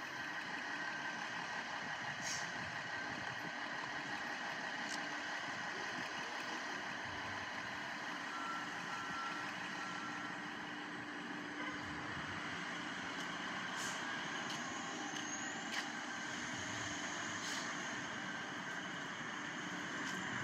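City buses running and idling amid street traffic: a steady engine drone with a few light clicks.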